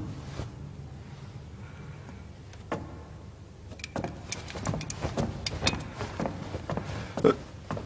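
Footsteps on a wooden floor: a run of short, irregular knocks and clicks starting about halfway through, over a low steady hum.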